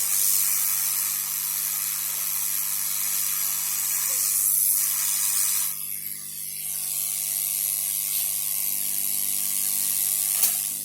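Hot-air rework gun blowing a steady hiss while MOSFETs are heated onto a motherboard. The hiss dips briefly about six seconds in and comes back, and there is a sharp click near the end.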